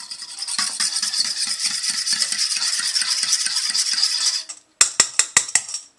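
Fork beating an egg-and-milk batter in a metal mixing bowl, fast scraping strokes about five a second. They stop about four and a half seconds in, followed by five sharp taps of the metal fork on the bowl.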